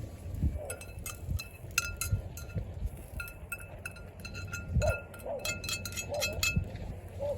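Repeated light metallic clinks, each with a brief ring at the same pitch, from a metal object being handled or knocked, with a few low bumps between them.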